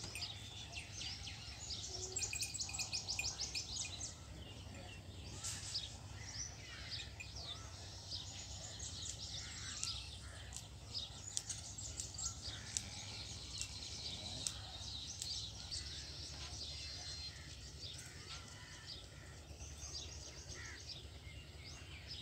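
Small birds chirping and twittering continuously, with a fast trill about two to four seconds in, over a steady low rumble.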